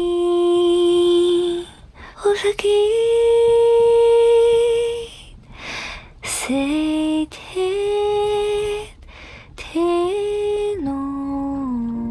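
A woman's voice singing a slow, wordless melody in long held notes, stepping from pitch to pitch, with short breaks between phrases.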